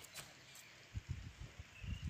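Small freshly caught fish flapping on the fishing line, knocking softly against the stone and a plastic bag: short runs of dull thumps about halfway through and again near the end.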